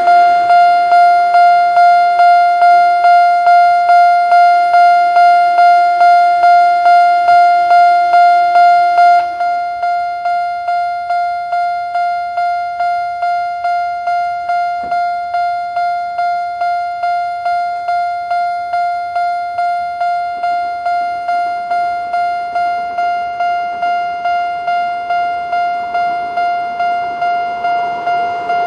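Japanese level crossing alarm of the electronic single-tone type, ringing one repeated tone a little under twice a second. About nine seconds in it drops in level and sounds duller.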